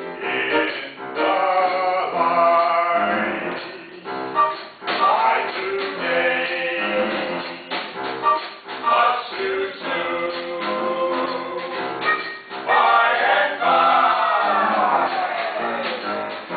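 Several voices singing together in a musical theatre number, performed live on stage.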